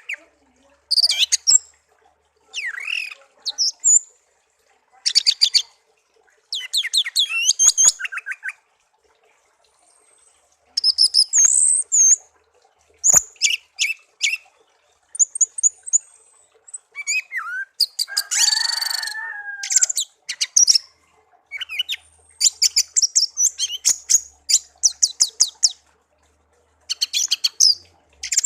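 Pet songbird singing in short, high-pitched phrases of rapid trilled notes and whistled slides, with pauses between phrases. About two-thirds of the way through comes one longer, harsher rasping call.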